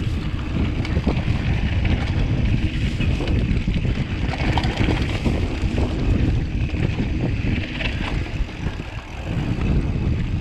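Wind buffeting a GoPro camera's microphone on a mountain bike riding down a dirt singletrack, with scattered clicks and rattles from the bike and tyres over the rough trail.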